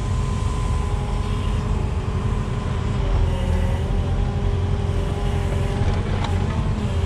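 Wheeled excavator's diesel engine and hydraulics running under work, a steady low drone with a thin hydraulic whine that wavers slightly in pitch midway.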